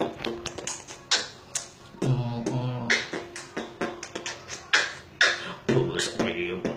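Human beatboxing: a rapid rhythm of vocal kick, snare and hi-hat sounds made with the mouth, with two short runs of pitched vocal notes about two seconds in and near the end.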